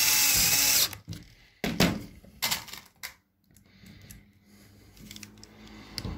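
Cordless drill-driver driving a screw into an aluminium screen-frame profile: the motor whine cuts off about a second in, followed by several sharp clicks and knocks.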